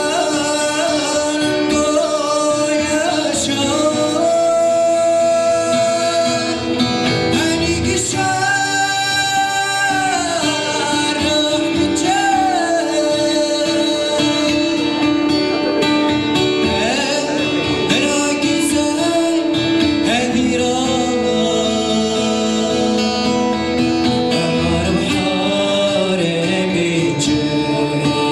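A man singing live into a microphone while accompanying himself on a strummed acoustic guitar. The melody has long held notes that waver in pitch, over steady guitar chords.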